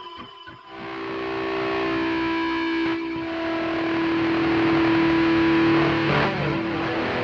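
ESP LTD H-401QM electric guitar with DiMarzio Titan pickups, played distorted through a Boss ME-80 with delay: fading delay repeats give way to a held note that swells in about a second in and sustains for some five seconds. A quick sweep and a new chord come near the end.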